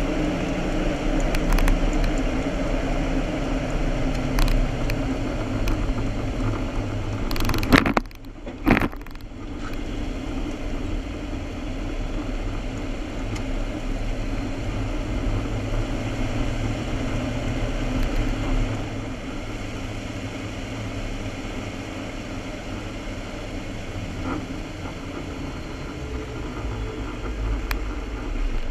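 Steady road noise of a vehicle driving along a paved road, with two loud thumps about eight seconds in, after which the noise settles a little quieter.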